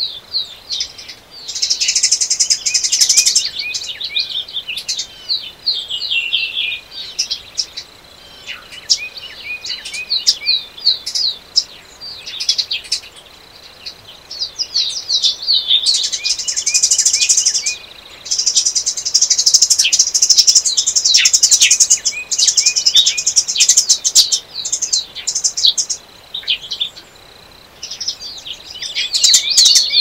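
Songbirds singing: a busy chorus of overlapping chirps, whistled phrases and fast high trills, several birds at once. The song comes in spells a few seconds long, with the loudest and densest stretch past the middle.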